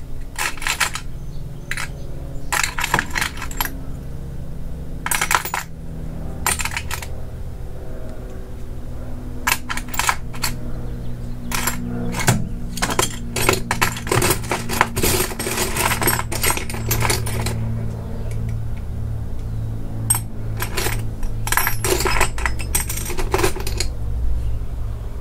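Small metal Allen keys from an inch-size set clinking and rattling as they are picked through and tried in the hex socket on top of a coilover damper shaft, in irregular clusters of light clinks. A steady low hum runs underneath.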